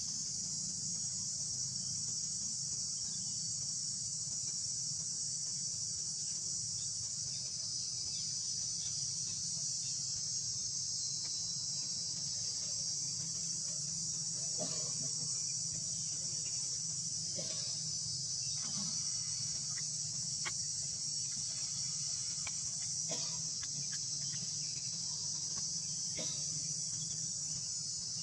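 A steady, high-pitched chorus of insects that runs unbroken, over a low steady hum. A few faint clicks and rustles come in the second half.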